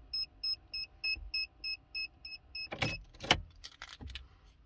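Ford Focus Mk3 parking sensor warning beeping steadily at about four short high beeps a second, then stopping about two-thirds of the way in. A few sharp clicks follow near the end.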